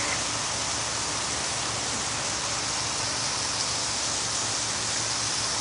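Steady rain falling, an even hiss of water.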